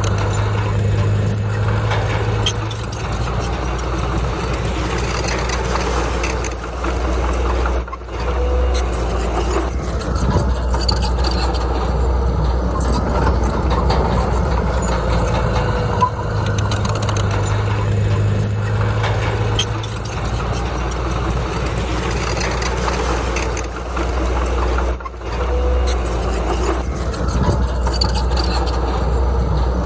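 Heavy diesel earthmoving machinery running steadily under load, with the engine note shifting now and then and dipping briefly twice.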